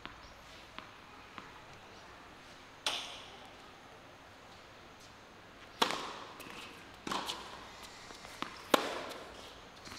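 Tennis ball sounds on a hard court: a few light taps as the ball is bounced before serving, then sharp, louder knocks from about halfway, ending in the crack of the serve off the racket strings near the end.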